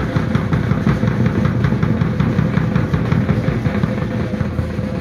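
Marching band playing outdoors: a steady held tone with regular drum strokes, over a heavy low rumble.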